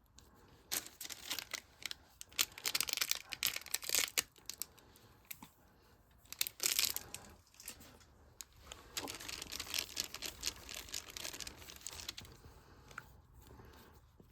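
Slime mixed with beads being squished and kneaded by hand: dense crackling clicks coming in several bursts.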